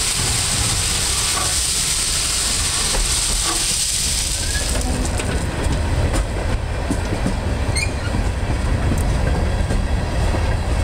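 Loaded Herzog ballast hopper cars of a slow freight train rolling past with a steady low rumble. A strong hiss, the rock ballast pouring from the open hopper gates onto the track, fades about five seconds in, after which the wheels clicking on the rails stand out.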